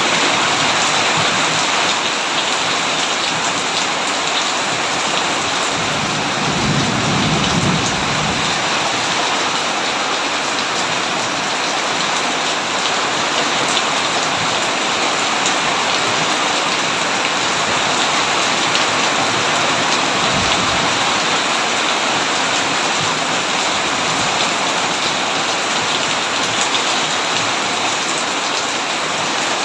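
Heavy, steady rainfall with low rolls of thunder, one about six seconds in and a shorter, fainter one about twenty seconds in.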